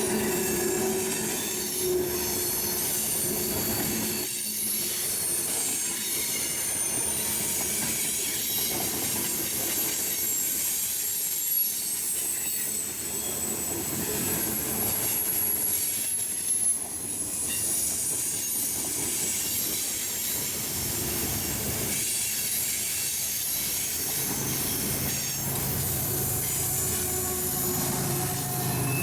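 Railroad cars rolling past, their steel wheels squealing against the rails in several high, shifting tones over the steady rolling noise of the train, with a few sharp clanks along the way.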